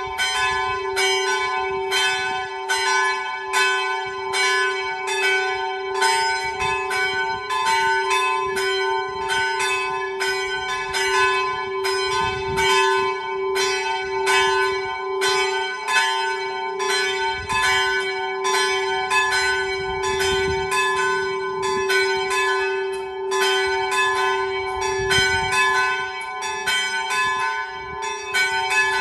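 Two small church bells swung by hand on cables and ringing together in a full peal, one set of three small bells (a 1904 Meneely and two 1968 Paccards, tuned G, A and B) of which only two are rung at a time. The strikes come quickly and unevenly over a steady ringing tone.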